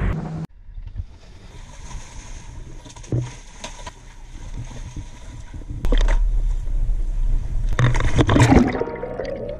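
Sea water sloshing and splashing around a small dive boat, with a low engine rumble that gets louder about six seconds in. A louder splash comes about eight seconds in.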